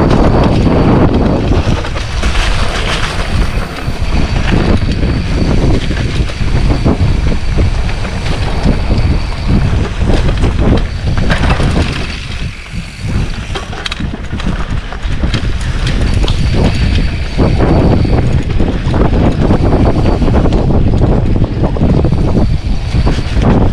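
Wind buffeting the microphone of a mountain bike rider riding fast down a rough dirt trail, over a steady low rumble from the tyres and frequent knocks and rattles of the bike over bumps.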